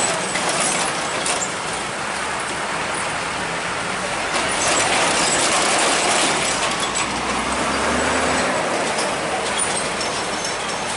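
Road traffic with heavy trucks passing close by: steady engine and tyre noise that swells about four to seven seconds in, with a low engine hum around eight seconds.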